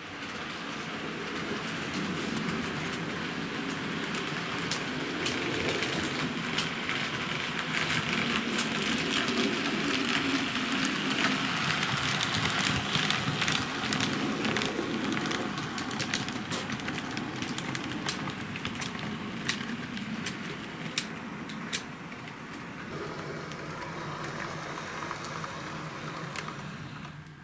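H0-scale model train (a BR 64 steam locomotive model with freight wagons) running along the track: a steady rolling whirr with scattered clicks from the wheels on the rails. It grows louder in the middle as the wagons pass close and eases off near the end.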